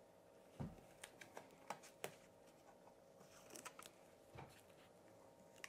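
Faint handling sounds of gloved hands working around a floor outlet box: a soft thump about half a second in, then scattered light clicks and taps, over a faint steady hum.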